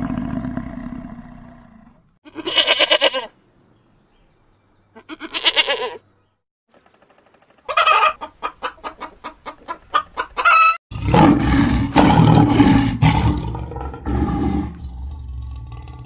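A string of separate animal calls. A low bison grunt fades out at the start. Chickens follow: two short calls, then a rapid run of clucks from a rooster and hens, about five a second. A loud call from an unseen animal lasting about three seconds comes next.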